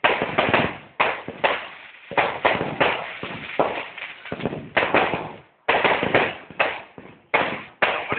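Fireworks going off: a rapid, irregular barrage of sharp bangs and pops, several a second, each trailing off quickly, with a brief pause about five and a half seconds in.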